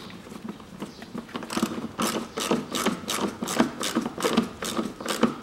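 A hand ratchet clicks in a steady run of sharp clicks, about three a second, getting louder about one and a half seconds in, as a fastener on the air-intake duct is tightened.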